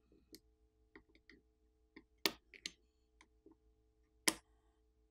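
Faint, scattered small clicks and taps of repair tools and phone parts being handled, about a dozen at irregular intervals, the loudest about two and four seconds in, over a faint steady hum.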